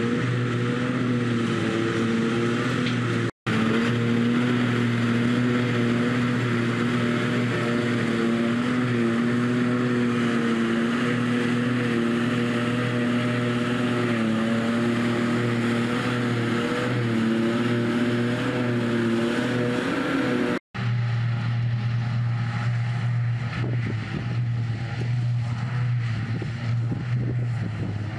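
Claas Jaguar 900 forage harvester running under load while chopping grass, with a Fendt 828 Vario tractor driving alongside: a steady, heavy diesel drone with a constant hum. The sound drops out for an instant twice.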